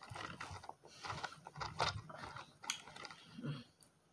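Fork clicking and scraping against the bowl while picking up salad: a run of small irregular clicks.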